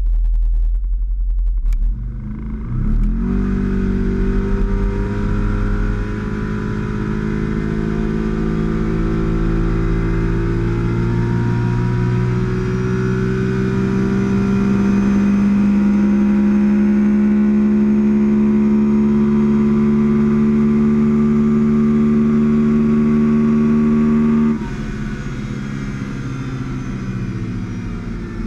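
Kawasaki Teryx 4 side-by-side's V-twin engine pulling away from a standstill at full throttle about three seconds in. Its pitch then climbs slowly and holds high for some twenty seconds, before dropping sharply near the end as the throttle comes off.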